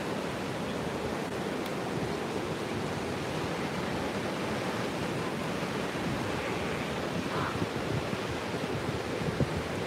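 Ocean surf breaking and washing up a sandy beach in a steady rush, with wind buffeting the microphone, a few stronger gusts near the end.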